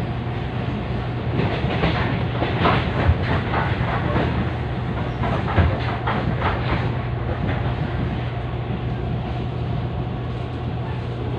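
TRA EMU500 electric commuter train running, heard from inside: a steady low hum over the running rumble. From about a second and a half in until about seven seconds in, a quick run of wheel clicks over rail joints comes through, then the running settles back to a smooth rumble.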